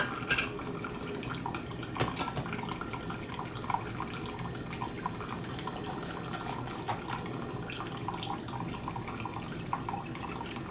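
Steady running and trickling water, with small clicks and knocks of kitchen items being handled and a sharper knock about two seconds in.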